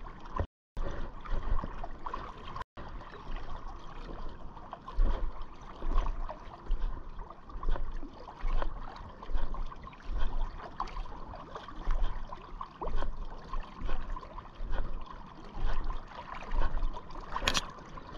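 River water lapping and trickling around a wading angler, coming in uneven surges about once a second. The sound cuts out briefly twice near the start.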